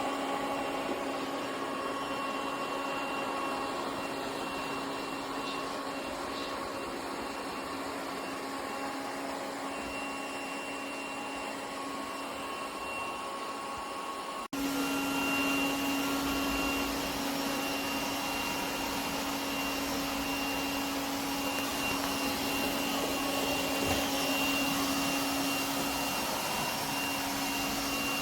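Lefant M1 robot vacuum cleaner running with a steady motor hum. The sound cuts abruptly about halfway through and comes back a little louder.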